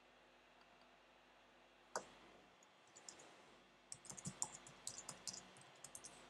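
Computer keyboard keys typing a password: a single sharp click about two seconds in, a few clicks around three seconds, then a quick run of key clicks for about two seconds near the end.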